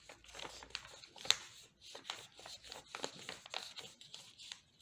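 A sheet of A4 paper rustling and crinkling in short strokes as hands roll it tightly around a PVC pipe, with one sharper crackle about a second in.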